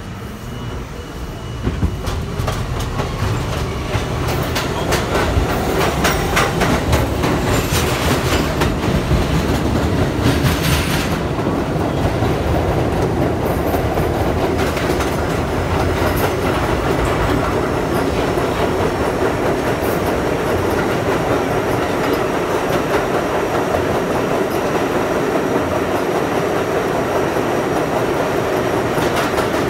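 R42 New York City subway car running at speed through a tunnel: a steady rumble and rattle, with wheels clattering over rail joints. It grows louder about two seconds in, and the clicking is heaviest a few seconds later.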